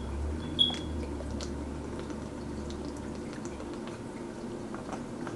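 A man gulping orange juice straight from a plastic jug: liquid sloshing and swallowing, with a low rumble for about the first three seconds and a brief squeak about half a second in.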